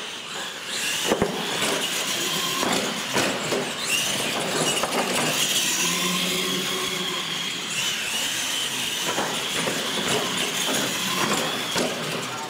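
Electric R/C monster trucks racing flat out: a high motor-and-gear whine that rises and falls with the throttle over tyre noise, broken by a few sharp knocks as the trucks hit and land off the ramps.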